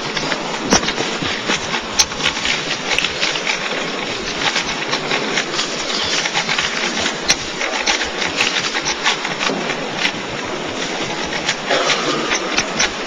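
Rubik's Cube being turned rapidly in a speed solve: a dense, continuous clatter of plastic clicks.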